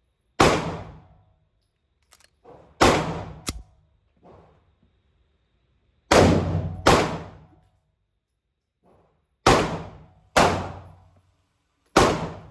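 Seven pistol shots fired at an irregular pace, a second or more apart with a couple in quicker pairs, each followed by a short echo in the indoor range.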